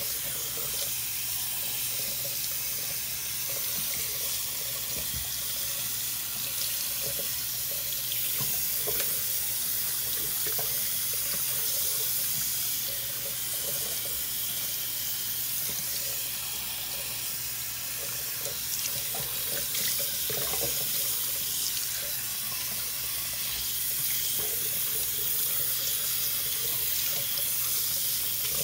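Bathroom sink faucet running steadily, water splashing over a puppy being rinsed by hand in the basin.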